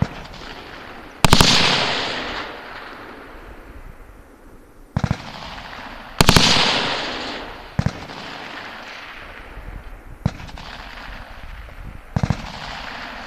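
Gunfire: quick strings of several shots about a second in and again about six seconds in, each trailing off in a long fading echo, with single shots fired between them.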